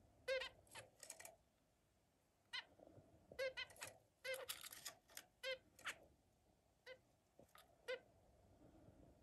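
Zebra finches calling: about fifteen short, beeping calls in uneven clusters, with a quiet pause about two seconds in.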